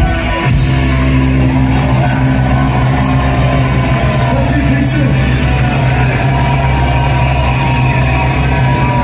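Post-punk rock band playing live and loud in a club, electric guitars and bass in full sound. A low chord drones steadily from about half a second in.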